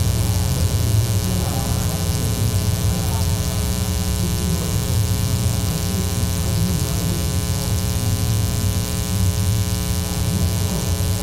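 Steady electrical mains hum and buzz, a low drone with many overtones that stays loud and unchanging throughout.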